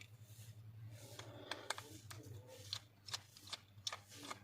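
Small scattered clicks and taps of tools and plastic parts being handled while a smartphone is taken apart, over a low steady hum.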